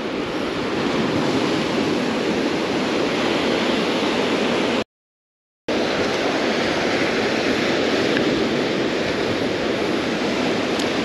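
Ocean surf breaking against jetty rocks: a steady, loud rushing wash of waves. The sound cuts out completely for under a second about five seconds in.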